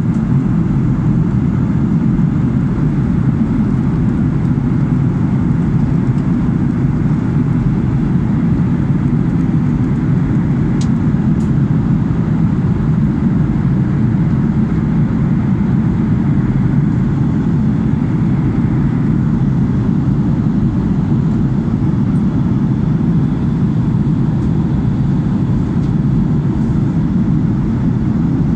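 Jet airliner cabin noise at cruise: a steady, even low rumble of engines and airflow, with no change in level throughout.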